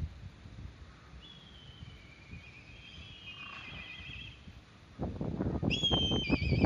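Black kites calling: high whistled calls, each a held note that drops into a wavering trill. Two fainter calls come in the first half and a louder one near the end. Wind buffets the microphone from about five seconds in.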